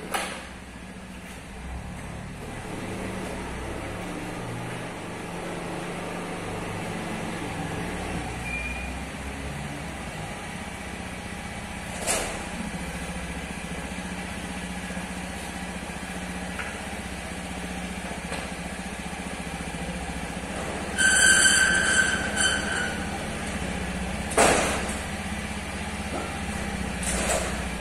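Honda Scoopy 2013 scooter's single-cylinder four-stroke engine idling steadily after a cold start. There are a few sharp knocks, and a loud high-pitched squeal lasting about a second and a half about three quarters of the way through.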